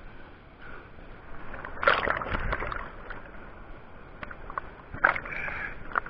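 Foaming whitewater in a waterfall pool rushing and splashing right at the microphone, with louder bursts of splashing about two seconds in and again about five seconds in.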